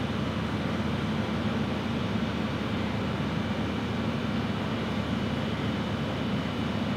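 Steady, unchanging mechanical background noise with a low hum, with no distinct events.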